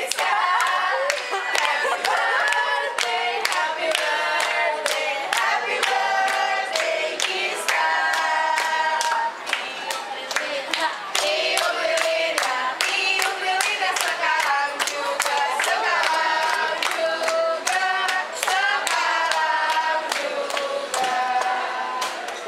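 A group of people singing a birthday song together, with hand clapping in steady time along with it.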